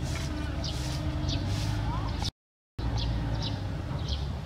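A bird chirping over and over, a short high chirp about every three-quarters of a second, over a steady low rumble. The sound cuts out completely for about half a second a little after two seconds in.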